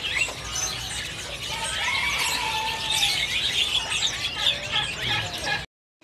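Many caged birds of mixed species chirping, whistling and calling over one another in short overlapping calls. The sound cuts off abruptly shortly before the end.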